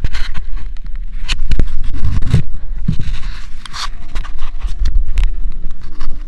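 Body-worn action camera scraping and knocking against a wooden log and rope as the wearer climbs over an obstacle: repeated rubs and sharp clicks over a steady low rumble.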